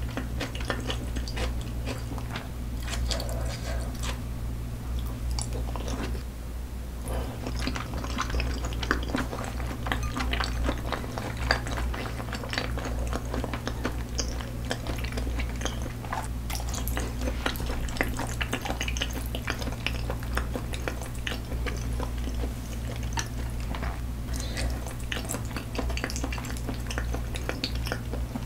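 Close-miked chewing of thick-cut raw salmon sashimi: many small wet mouth clicks, with the occasional tap of chopsticks against dishes, over a steady low hum.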